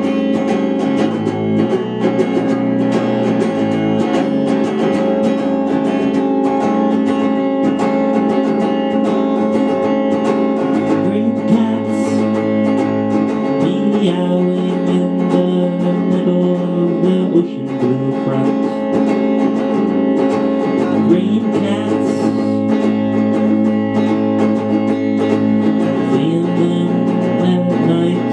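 Electric guitar played through a small combo amplifier: chords ring and sustain, and the low notes change every few seconds.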